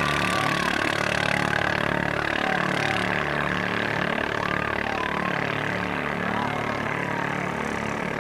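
Engines of bala-bala racing longboats running flat out in a steady, wavering drone. Several engine notes overlap, their pitch sliding up and down as the boats race, and it fades a little toward the end.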